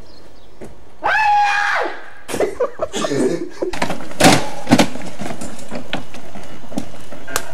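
A high-pitched cry, then scuffling and several sharp clattering impacts as a man carrying a plastic pet carrier trips over a folding chair and falls to the ground.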